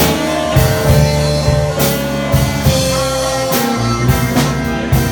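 Live blues band playing between sung lines: electric guitar and bass over a drum kit keeping a slow beat, with no singing.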